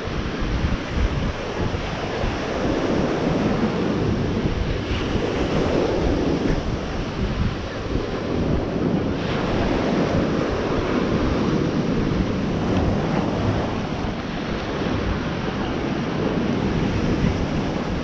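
Ocean surf washing ashore in a steady wash of noise, with wind buffeting the microphone.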